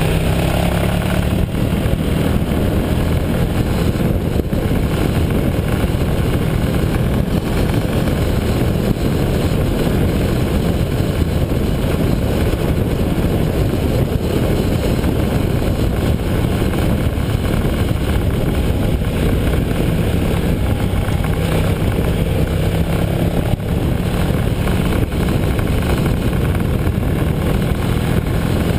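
Motorcycle engine running at road speed, with heavy wind rumble on the microphone. The level stays steady throughout.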